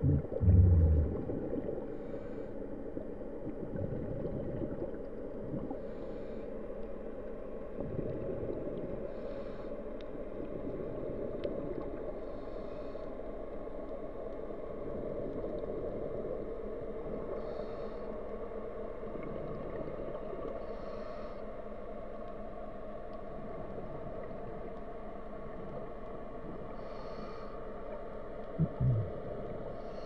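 Muffled underwater sound as heard through a camera's waterproof housing: a steady low drone with a faint hum. There are heavy low thumps just after the start and again near the end, and faint short hisses every couple of seconds.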